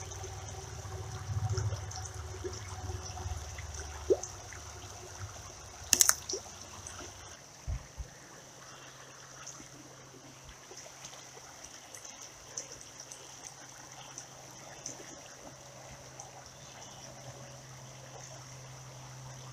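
Shallow creek water trickling over a riffle, a steady running sound. A few sharp clicks and knocks from handling the rod and line, the loudest about six seconds in.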